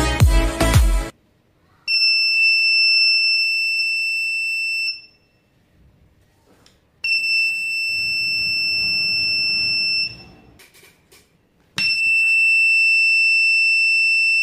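Arduino buzzer module sounding a steady high-pitched beep for about three seconds, three times over, each set off by a tap on the table that the knock sensor picks up. A short sharp click marks the start of each beep.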